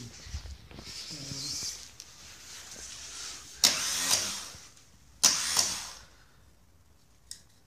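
Classic Mini A-series engine's starter motor whirring in two short bursts, a second and a half apart, each cutting off within a second without the engine catching. A jump-lead connection is not making proper contact.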